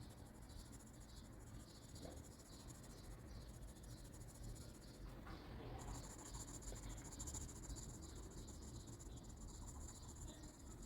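Graphite pencil shading on drawing paper: quick, repeated back-and-forth strokes scratching faintly, growing stronger a little past halfway.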